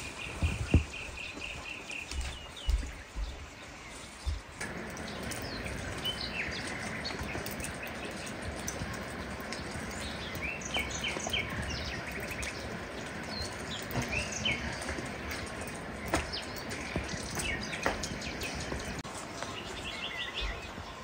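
Small birds chirping in short, repeated calls over a steady outdoor hiss. A few low thumps come in the first seconds.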